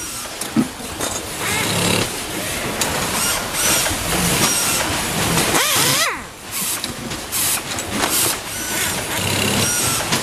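Pneumatic screwdriver driving screws into steel concealed cabinet hinges: repeated spells of the tool running with a hissing air exhaust, its whine sweeping in pitch as the trigger is pressed and released. A sharp metal clank comes just after the start.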